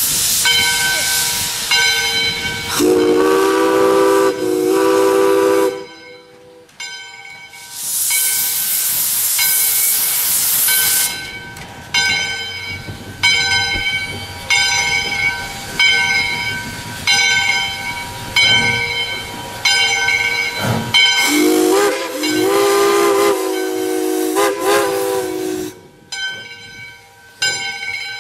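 Steam locomotive No. 40, a 2-8-2, getting under way: its chime whistle sounds twice, once near the start and once near the end, each a long blast broken briefly. Between them comes a loud hiss of steam lasting about three seconds, and through it all a bell rings steadily, about once a second.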